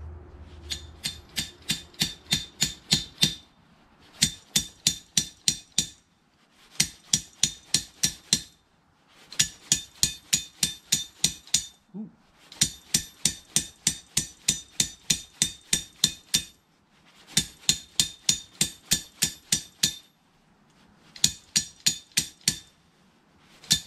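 Rapid metal-on-metal tapping on a Yard-Man MTD snowblower's stripped auger gear and gearbox, driving them along the rust-seized auger shaft. About three to four strikes a second come in seven bursts of two to four seconds each, with short pauses between.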